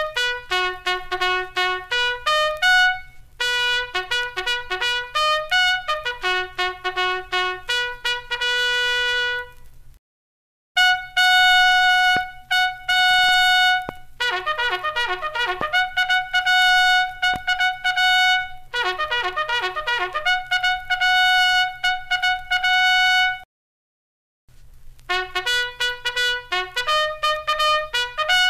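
Military bugle call. Runs of quick, tongued notes jump between a few fixed pitches and alternate with long held notes. The call breaks off into silence twice, about ten seconds in and again near twenty-four seconds, then starts again.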